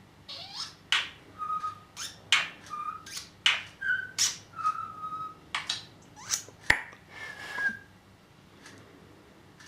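Pet budgerigar chattering: a quick run of sharp clicks and chirps mixed with short whistled notes, with one especially sharp click near the end before it falls quiet.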